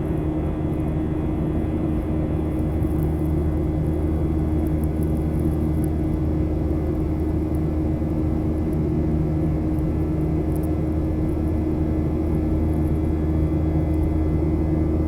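Steady drone and rumble of a jet airliner's engines and airflow heard inside the passenger cabin after takeoff, with a constant low hum running under it.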